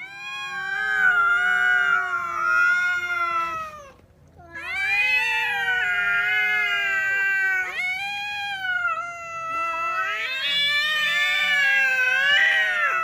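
Two cats caterwauling at each other in a quarrel: long, drawn-out, wavering yowls that rise and fall in pitch, breaking off briefly about four seconds in and then overlapping.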